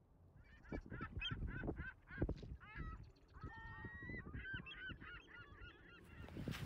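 Geese honking, a quick run of short calls at first and then more spaced, varied honks, with low rumbling underneath.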